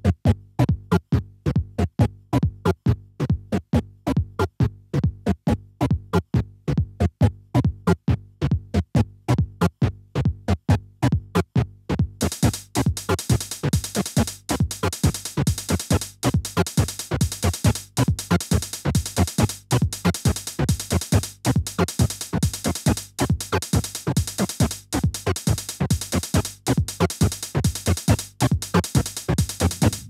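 Eurorack modular synth patch built around the Neuzeit WARP wavetable oscillator, playing a steady, fast pulse of short, low-pitched electronic notes. A bright, hissy high layer joins about twelve seconds in.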